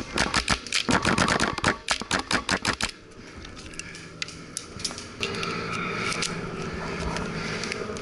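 Airsoft guns firing in rapid bursts of sharp clicks, about nine a second, for roughly the first three seconds, then only a few scattered shots over a low steady background.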